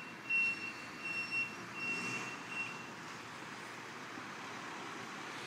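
Garbage truck backing up, its reversing alarm beeping with a high, steady tone that stops about three seconds in, over the steady noise of the truck's engine.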